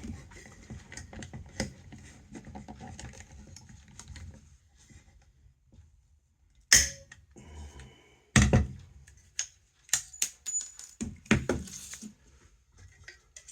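Hand pop-rivet tool being worked on a rivet through a blower motor's metal housing: light clicks of the tool and parts, then a sharp snap about seven seconds in as the rivet's mandrel breaks off. A heavier knock and a few more clicks follow.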